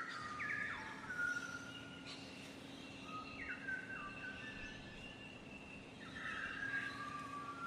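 A bird calling in three bursts about three seconds apart, each a quick run of notes dropping in steps, with thinner, drawn-out calls higher up between them. A faint low hum lies underneath.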